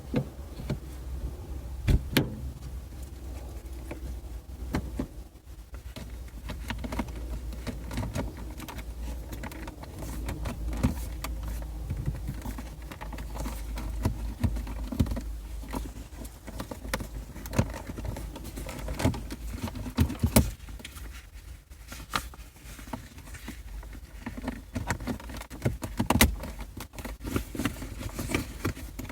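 Hands handling the shift knob and plastic shifter trim of a Kia Optima: scattered clicks, knocks and rattles of plastic parts over a steady low rumble.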